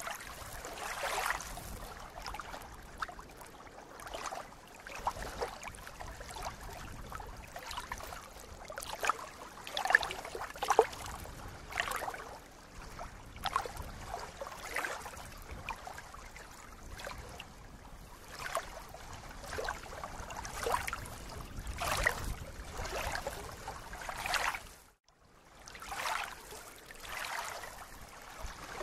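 Small ripples of lake water lapping at a reedy shoreline, in soft, irregular splashes about once a second. The sound drops out briefly about 25 seconds in.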